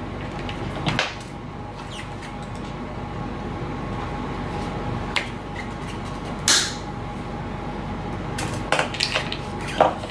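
Pliers cutting through a thin RC push rod wire with one sharp snip about six and a half seconds in, among light clicks and taps from handling the rod and clevis.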